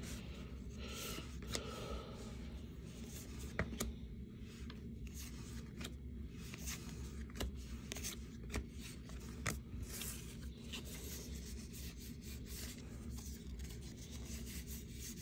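Gypsy Queen baseball cards being flipped through by hand, the card stock sliding and rubbing against itself with a scattering of light clicks, over a steady low hum.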